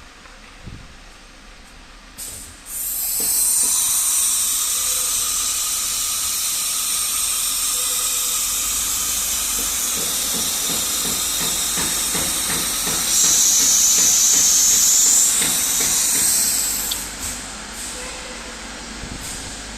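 AKM8020C automatic-tool-change CNC router running with a loud, steady hiss. The hiss starts about three seconds in, gets louder past the middle, and dies down a few seconds before the end.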